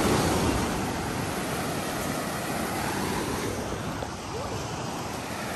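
Steady rush of water where a fast, muddy river pours over a shingle beach into breaking sea surf, a little louder at first and easing slightly about a second in.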